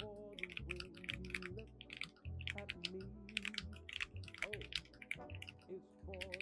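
Fast typing on a Keychron V10 Max mechanical keyboard fitted with Gateron Jupiter Banana tactile switches and PBT keycaps: a dense run of keystroke clicks, easing off briefly a couple of times. Faint background music plays underneath.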